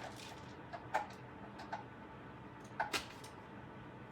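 Scattered light clicks and taps of small lamp hardware being handled and fitted into the lamp's parts during assembly. The loudest is a sharp click about a second in, with two more close together near the three-second mark.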